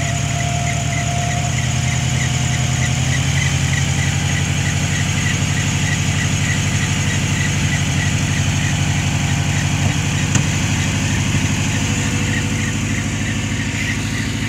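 Dodge Ram pickup's engine idling steadily with the hood open, with a faint, regular high chirp repeating over it. It runs heavier than it should, which the owner puts down to an exhaust leak at the catalytic converter.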